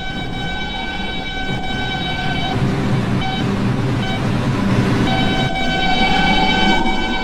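New York City 5 train subway car running between stations: a steady propulsion whine of several held tones over a rumble of the wheels, one tone rising slightly from about five seconds in as the train picks up speed.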